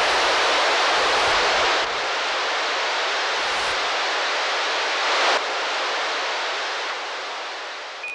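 A steady rushing noise effect closing the song after the music has stopped, fading gently toward the end.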